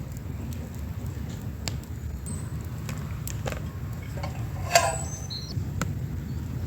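Scattered light clicks and knocks of cooking utensils, with one sharper, ringing clink a little under five seconds in, over a steady low rumble.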